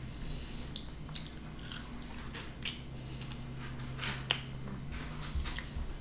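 Close-up mouth sounds of a person chewing food eaten by hand: irregular wet clicks and smacks, the sharpest about four seconds in, over a low steady hum.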